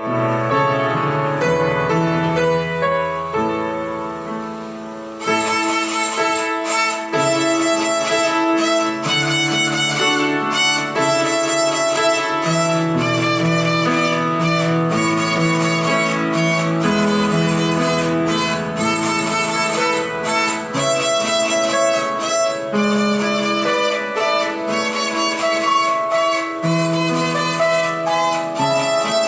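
Violin playing a melody of sustained bowed notes over a lower-pitched accompaniment; about five seconds in the sound turns fuller and brighter.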